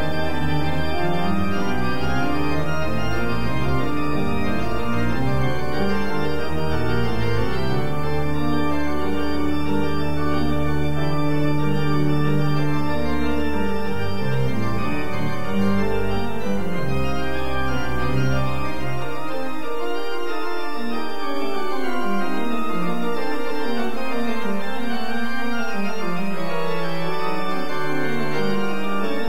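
Organ music playing sustained, changing chords; the deep bass notes drop out about two-thirds of the way through.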